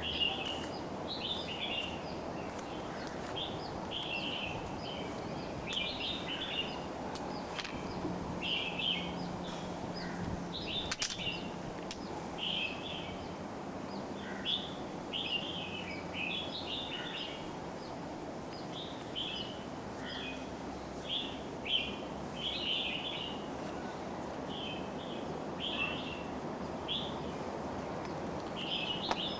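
Small birds chirping over and over, short bright chirps coming a few times a second, over a steady background hiss, with one sharp click about eleven seconds in.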